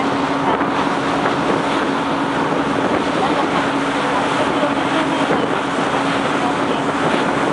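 Wind buffeting the microphone on the open deck of a moving harbour ferry, over the rush of water along the hull. A steady engine hum runs underneath and fades out about six seconds in.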